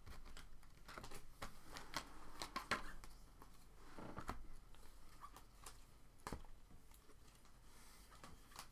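Trading cards being handled and sorted on a table: faint sliding and rustling with scattered light taps and clicks. The sharpest tap comes about two and a half seconds in.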